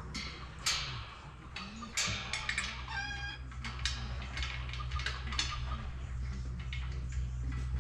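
Chickens clucking, with one short pitched call about three seconds in, among scattered sharp clicks over a steady low hum.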